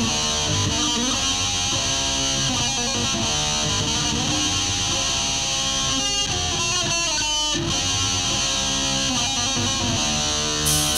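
Instrumental track from a heavy metal band's home demo recording: guitar playing sustained chords with no vocals. Drums and cymbals come in near the end.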